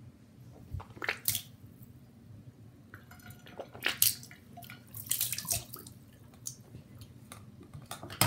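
Hairbrush being pulled through long hair close to the microphone: several short rustling strokes, the loudest about four seconds in.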